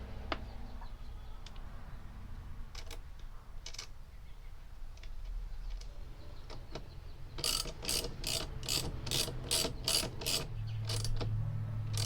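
Hand tool ratcheting during wiring work: scattered clicks and handling noises, then a quick even run of about eleven ratchet clicks, roughly four a second, a little over halfway through.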